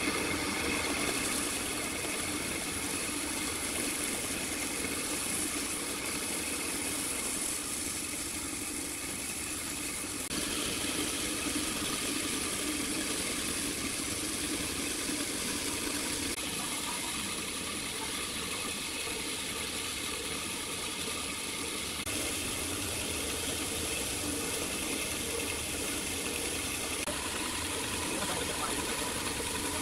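Band saw running steadily as its blade cuts through a thick pine board, with slight shifts in tone every few seconds.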